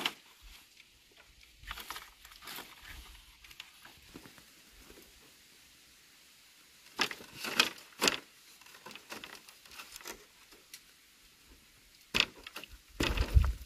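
Scattered short knocks and rustles from bamboo fence stakes being handled, coming in a few small clusters with quiet between them.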